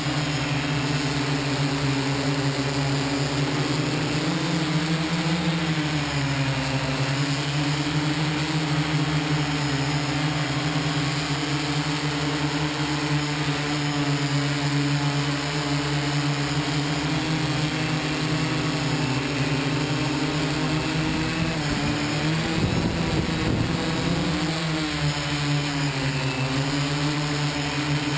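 Multirotor camera drone's electric motors and propellers humming steadily, with a pitch that wavers up and down. Around 22 seconds in the pitch shifts as the drone comes down to land.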